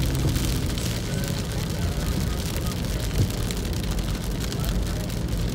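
Heavy rain hitting a moving car's windshield and roof, heard from inside the cabin, over a steady low rumble of the car and tyres on the wet road.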